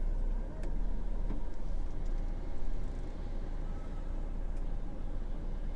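Steady low rumble of a 2022 DAF XF 480 lorry's diesel engine running, heard from inside the cab with the window closed. There is a faint click less than a second in.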